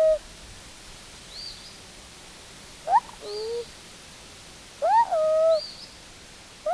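A child hooting bird-like 'woo' calls about every two seconds, each rising and then holding a steady note, with faint high bird chirps answering in between.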